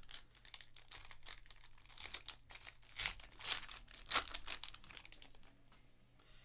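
Foil wrapper of a Panini Elite Extra Edition Baseball card pack being torn open and crinkled by hand: a quick, irregular run of crackles, loudest in the middle and thinning out near the end.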